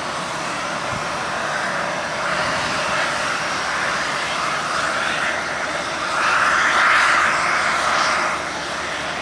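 Jet engines of an AirAsia Airbus A320 running as the airliner moves past close by. The steady jet noise swells to its loudest about seven seconds in, then begins to ease off.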